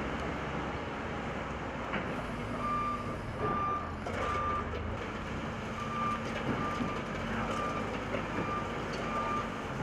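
Backhoe loader's reversing alarm beeping, about two beeps a second, starting a few seconds in with a short break in the middle, over the steady running of its diesel engine.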